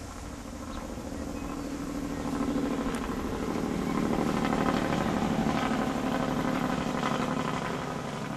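A motor engine droning steadily, growing louder over several seconds and then fading.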